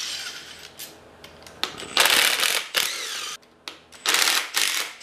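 Cordless drill/driver running in several short bursts, its pitch winding up and down, as it backs out the side-cover bolts of a lawn tractor's hydrostatic transaxle; the loudest bursts come about two seconds in and near the end.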